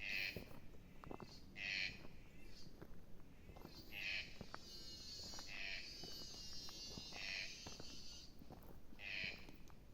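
An animal calling repeatedly, a short high call about every one and a half to two seconds, with a high steady buzz in the middle and faint knocks and crunches underneath.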